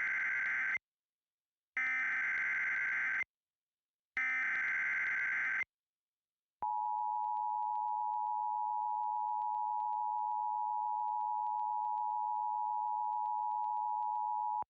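Emergency Alert System activation: three bursts of SAME header data tones, each about a second and a half long with short gaps (the first already under way), followed about six and a half seconds in by the EAS attention signal, a steady two-tone alarm held for about eight seconds.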